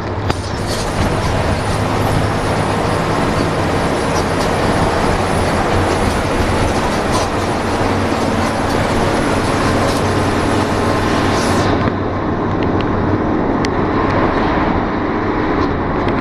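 Cabin noise inside a bus cruising at highway speed: a steady engine drone under road and tyre noise, with scattered clicks and rattles from the cabin. The high hiss drops away about twelve seconds in.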